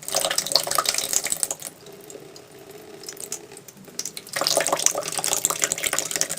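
Thin jet of water squirting under air pressure from a homemade pressurised bottle through a drip-set tube, spattering and splashing. It weakens for a couple of seconds in the middle, then comes on strongly again.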